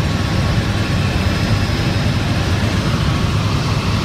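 Helicopter engine and rotor noise heard from on board: a steady, loud drone with most of its weight low down.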